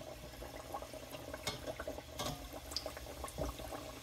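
Maandazi dough pieces deep-frying in hot oil in a stainless steel pot: steady bubbling and sizzling, peppered with small crackles and pops, a couple of them louder around a second and a half and two seconds in.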